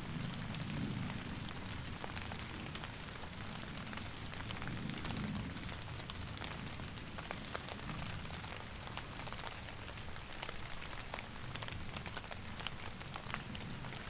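Steady rain falling in woodland, with many separate drops ticking and a low rumble underneath.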